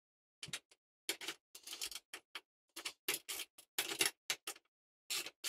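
Ratchet wrench clicking in short, irregular strokes as nuts are tightened on bolts, fastening a portable table saw to its stand.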